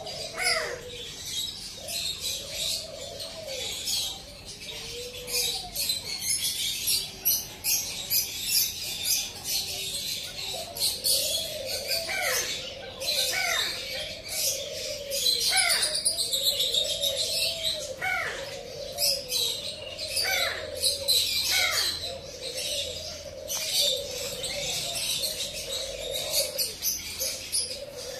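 A dense chorus of many caged birds: small birds chirping without pause, over low, repeated cooing calls. In the middle stretch sharp falling calls come about every second or two.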